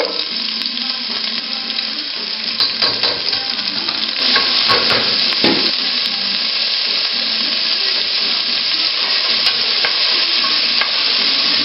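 Sliced onion frying in hot olive oil in a non-stick pot for a soffritto, sizzling steadily and growing louder about four seconds in. A wooden spoon scrapes and knocks against the pan as the onion is stirred.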